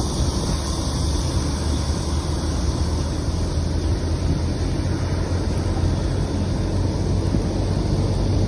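Steady rush of wind on the microphone mixed with tyre and road noise from a bicycle riding along a paved road.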